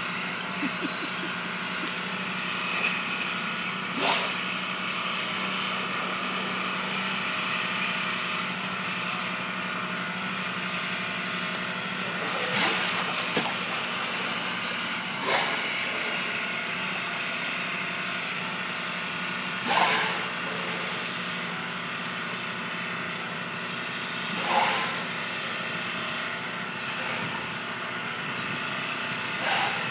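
Boat engine running steadily, with short louder sounds every few seconds, the strongest about two-thirds of the way in.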